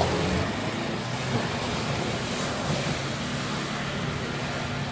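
Off-road 4x4's engine running at fairly steady revs under load in thick mud, with a rushing noise of tyres churning through mud and water.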